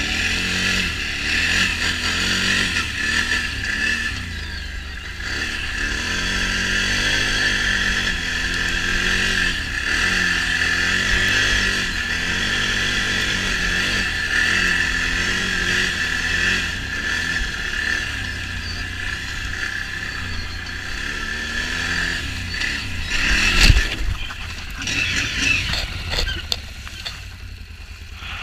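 Can-Am Renegade XMR 1000's V-twin engine running under changing throttle, its pitch rising and falling as the ATV is ridden. Near the end a single sharp knock, the loudest moment, after which the engine runs lower and more unevenly.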